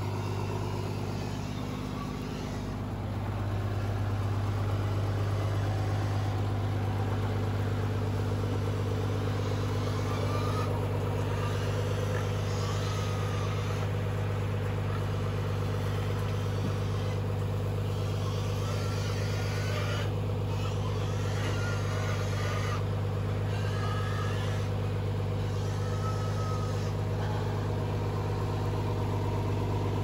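Diesel engine of an Isuzu Forward truck idling with a steady low hum.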